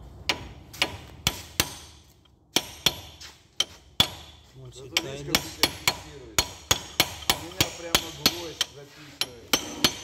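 Hammer striking a punch held against the front axle nut of a 2005 Scion xB, locking (staking) the nut after the new wheel bearing has been fitted. Steady run of sharp metallic taps, about three a second, with a brief pause around two seconds in.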